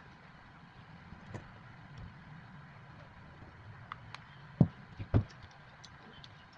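Two sharp knocks, about half a second apart, a little past the middle, as a homemade battery pack of cylindrical cells in plastic cell holders is handled and tipped up onto its edge on the bench. A few small clicks come before them, over a faint low hum.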